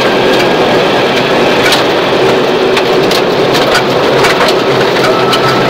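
Subaru Impreza rally car flat out on a gravel stage, heard from inside the cabin: the flat-four engine drones steadily under a loud hiss of tyres on loose gravel, with many stones pinging and clattering off the underbody.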